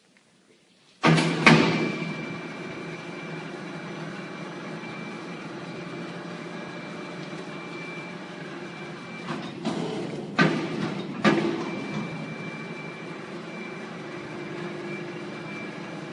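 Machinery running steadily in a factory hall, starting abruptly about a second in, with a few loud knocks around the middle.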